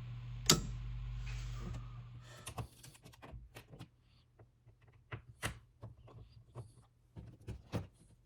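A sharp click about half a second in over a steady low hum that fades out around two seconds in. Then a run of light, irregular clicks and taps of small hand-tool and plastic handling at a wall switch.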